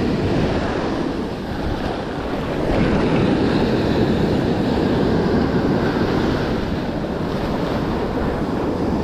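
Rough ocean surf breaking and washing up the beach, a steady rush of water with wind buffeting the microphone.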